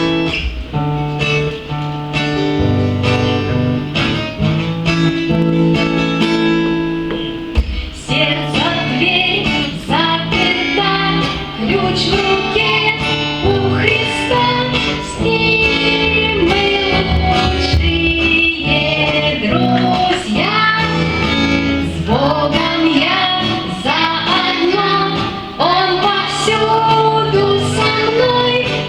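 A song with guitar accompaniment: about eight seconds of instrumental introduction, then a woman and children singing over the guitar.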